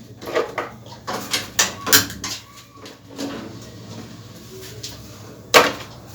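Metal pot and couscoussier steamer being handled and set on the stove: a run of short knocks and clatters in the first two seconds, then one sharp knock near the end.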